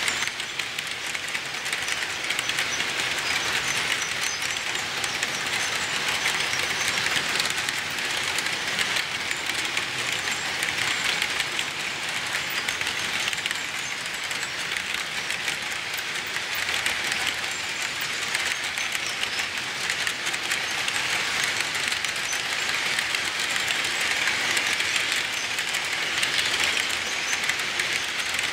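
HO scale model freight cars rolling past on sectional track with plastic roadbed: a steady, high rattling hiss of small wheels on the rails with light clicking.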